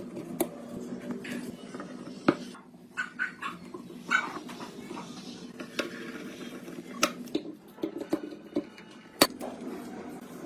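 Scattered sharp metallic clinks and knocks, about half a dozen, the loudest about two seconds in and near the end, over a steady low hum.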